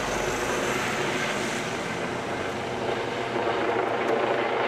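Mercedes-Benz Sprinter ambulance driving past, with steady engine and tyre noise.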